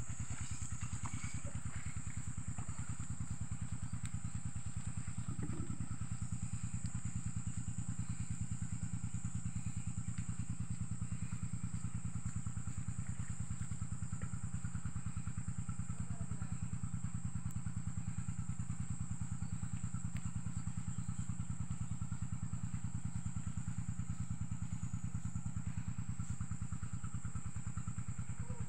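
Small engine running steadily at constant speed with a rapid even pulse, the kind of gasoline engine that drives an irrigation water pump for the field.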